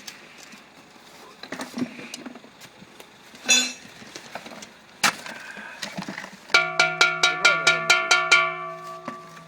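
A few scattered knocks and clicks, then about two-thirds of the way in music starts: quick, repeated plucked notes.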